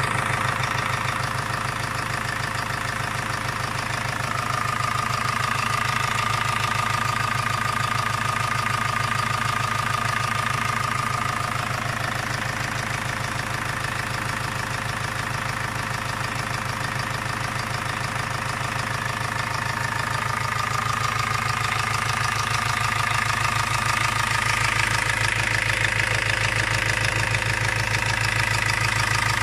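Ford Focus Mk1 1.8 TDDi four-cylinder diesel engine idling steadily with a rhythmic knock, which the owner takes for a worn connecting rod small end and gudgeon pin. A high whine comes in twice over the engine.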